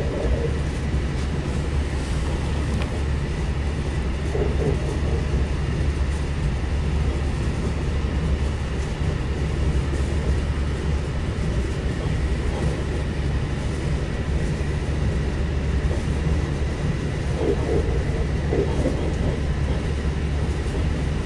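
Steady rumble of a Lastochka (Siemens Desiro RUS) electric multiple-unit running along the line, heard inside the carriage, with a faint steady high whine.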